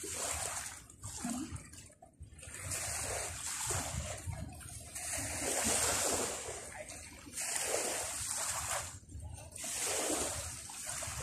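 Sea waves washing and splashing on a beach, surging in noisy swells every two to three seconds.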